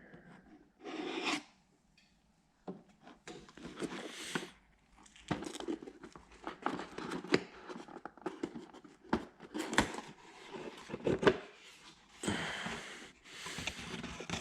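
A cardboard shipping box being cut open and torn apart by hand: irregular scraping, tearing and rustling of cardboard and packaging, with short clicks and gaps.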